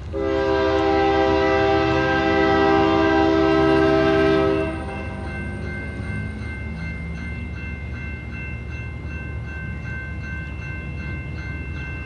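Horn of an approaching Norfolk Southern freight locomotive: one long blast of about four and a half seconds, several notes sounding together, that cuts off sharply. After it a steady high ringing with regular strikes goes on over a low rumble.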